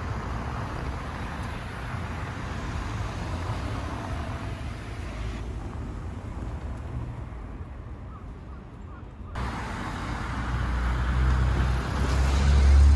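City street traffic: cars running along a road in a steady wash of noise, with a low rumble growing louder near the end.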